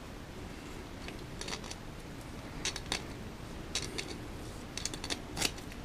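Scattered light clicks and scrapes of a hand tool gripping and turning the plastic servo saver's adjustment knob on a 1/5-scale RC car. The knob is stuck because it was cranked fully down and its threads were Loctited. The clicks come singly and in small clusters, about a dozen in all.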